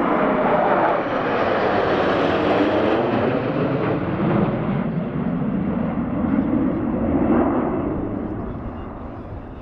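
Formation of twin-engine jet fighters passing low overhead, their engines' jet noise sweeping down in pitch as they go by, then fading over the last couple of seconds as they fly away.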